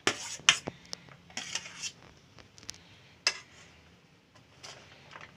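A steel spoon clinking and scraping against a steel plate and a glass bowl as chopped capsicum is spooned in. There are several separate clinks, the sharpest about half a second in and again just past three seconds.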